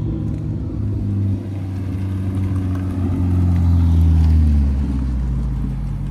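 Car engine running as the car drives past close by, growing louder to a peak about four seconds in and then fading.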